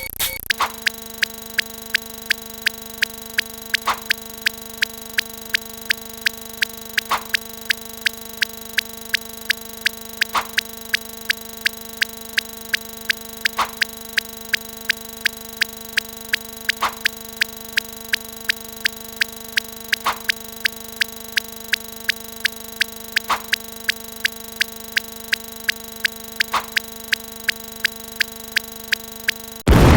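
Edited-in sound effect: a steady low two-tone hum with sharp clicks ticking about twice a second and a stronger click every three seconds or so. Near the end a loud explosion-like burst cuts in.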